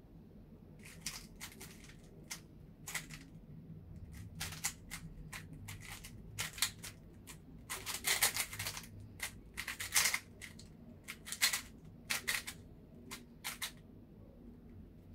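QiYi smart 3x3 speed cube being turned fast by hand: rapid runs of plastic clicking and clacking from finger-trick turns, with short pauses between runs. The turning starts about a second in and stops near the end as the solve finishes.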